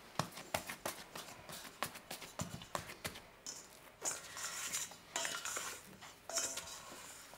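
Risen dough being punched down in a stainless steel mixing bowl, then a plastic dough scraper scraping around the inside of the bowl. A run of light knocks and taps comes first, then several scraping strokes from about four seconds in.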